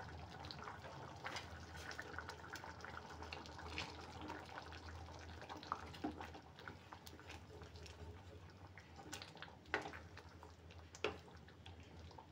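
Thick brinjal and moong dal curry boiling in a steel pan, with faint bubbling and popping as a wooden spatula stirs it. There is a steady low hum underneath, and two light knocks of the spatula against the pan near the end.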